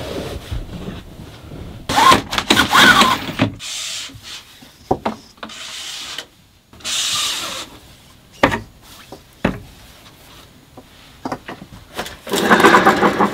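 Rubbing and scraping of objects being handled, in several bouts, with a couple of sharp clicks in the middle.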